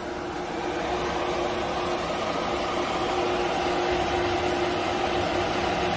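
ATC CNC router humming steadily with a constant tone as its Z axis is jogged down with the hand wheel. The hum grows slightly louder about a second in.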